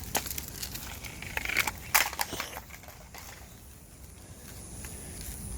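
Dry crunching and crackling: a brief crackle at the start, then a cluster of sharp crunches peaking about two seconds in, before it quiets down.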